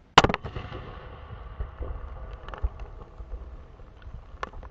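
A firework explosion blasting a watermelon apart. There is one sharp, loud bang right at the start, then a low rumble with scattered smaller cracks and thuds over the next few seconds.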